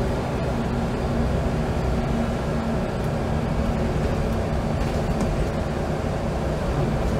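Scania L94UB single-decker bus's diesel engine running at a steady speed under way, heard from inside the passenger saloon over a constant rumble of road noise.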